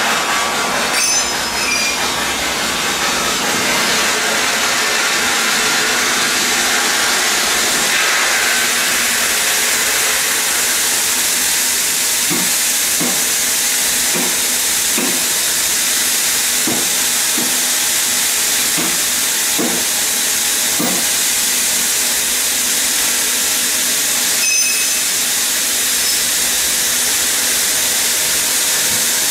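TGQ 160 saw-blade stone cutting machine cutting through a stone block under water spray: a loud, steady hissing grind. A run of about a dozen short low knocks comes through around the middle.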